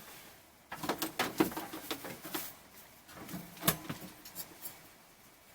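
Scattered clicks and rattles of objects being handled, in two bursts about a second in and again about three and a half seconds in.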